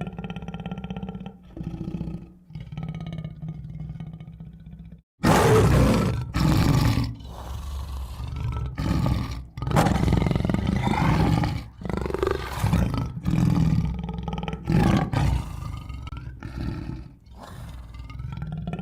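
Tiger growling and roaring: low, steady growls for about five seconds, then after a brief gap a run of loud roars and snarls in repeated bursts.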